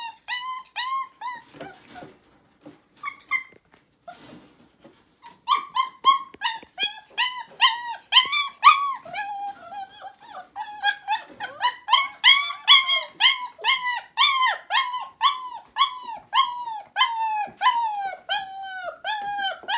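Four-week-old puppies whining: a string of short, high cries, each rising and falling in pitch. A few come in the first seconds, then they run on almost without a break, about two a second, from about five seconds in.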